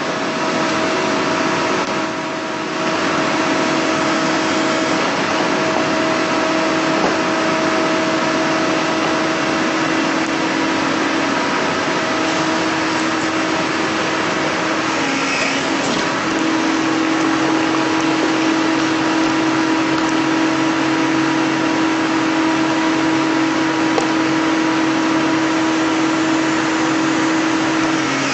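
Doosan DX225LC excavator's engine and hydraulic pump running under load, a steady hydraulic whine, as the SW1100 Super Wedge hydraulic rock splitter is pressed into the rock. The level dips briefly about two seconds in, and the whine drops in pitch around the middle before it steadies again.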